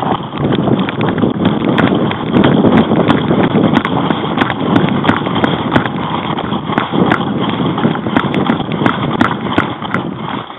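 Running footsteps crunching on gravel, close to a body-worn camera that bumps and rustles with each stride.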